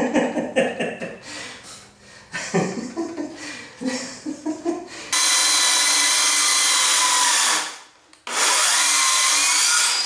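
Circular saw cutting through a plywood sheet: it runs loud and steady with a whine for about two and a half seconds, stops briefly, then starts again and cuts for nearly two seconds more.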